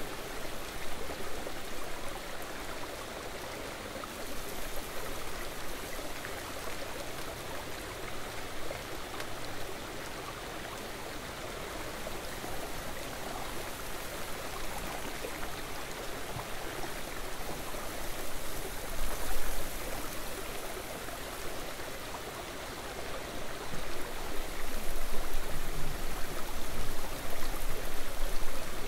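Steady rush of a flowing river, an even hiss of running water, louder for a moment in the middle and again near the end.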